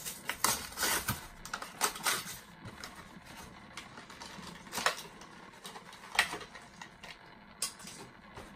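An old, yellowed plastic blister pack on a cardboard card being cracked open by hand: irregular crackling and clicking of stiff plastic, thickest in the first couple of seconds, then a few single snaps.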